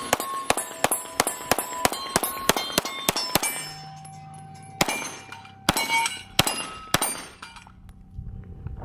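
Pistol fired fast at steel targets: a string of shots about four to five a second, each hit leaving the steel plates ringing. After a short pause come a few more shots, some in quick pairs.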